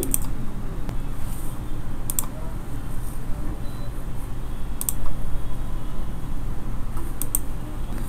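A few sharp computer mouse clicks over a steady low hum: a pair about two seconds in, one near five seconds, and two or three more close together near the end.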